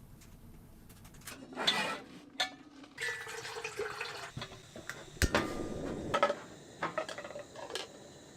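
Camp cookware being handled: water splashing or being poured, with metal clinks and clatter and one sharp knock about five seconds in.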